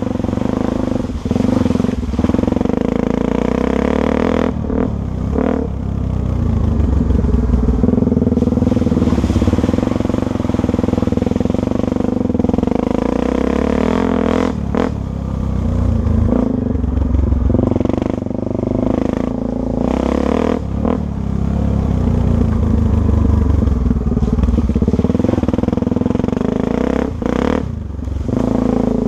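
Single-cylinder four-stroke dirt bike engine running hard at fairly steady revs, the pitch wavering as the throttle changes, with brief drops in sound every few seconds as the throttle is rolled off or a gear is shifted.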